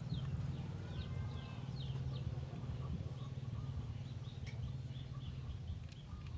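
Small birds chirping in the background, a quick run of short falling chirps in the first couple of seconds and scattered chirps after, over a steady low rumble.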